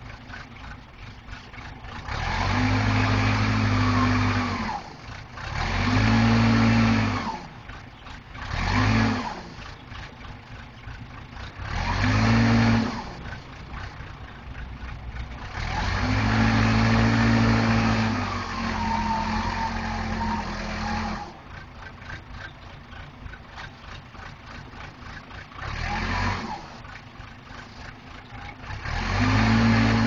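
Case 480C backhoe's engine idling and repeatedly revving up, about seven surges of one to three seconds each, the longest around the middle, dropping back to idle between them.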